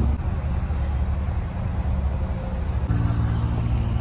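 An engine running steadily. About three seconds in its note changes, with a higher tone coming in.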